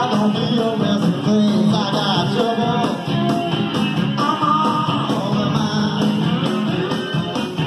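Rock-and-roll band recording with singing, guitar and stand-up bass, played from a cassette tape and heard through hi-fi loudspeakers in the room.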